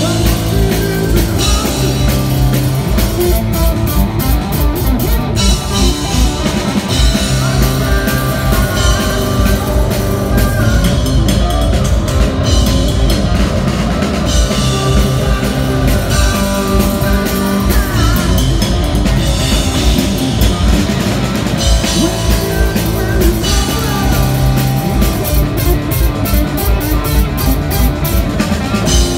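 A rock power trio playing loudly live on stage, with a Telecaster-style electric guitar, electric bass and a drum kit.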